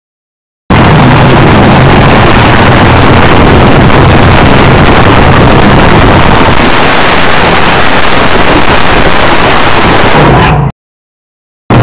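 Fuel altered drag car engine running extremely loud through a burnout, overloading the microphone into distorted noise. It cuts in abruptly after a moment of dead silence and drops out for about a second near the end.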